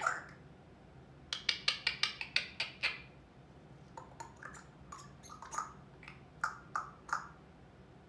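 African grey parrot making a quick run of about ten sharp clicks, then a few scattered short clicks and chirps.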